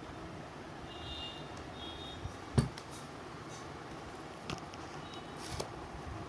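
Paperback textbooks being handled, pages riffling and rustling, with one sharp thump about two and a half seconds in as a book is set down on a hard floor, then a couple of lighter taps.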